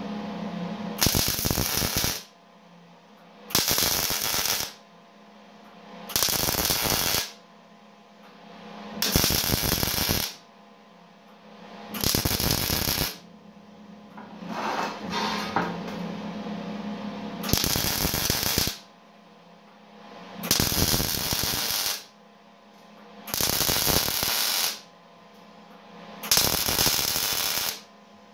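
Eastwood MIG 175 welder laying a series of short tack welds on expanded-metal steel grate. There are about ten crackling arc bursts, each about a second long and a couple of seconds apart, with a faint steady hum between them.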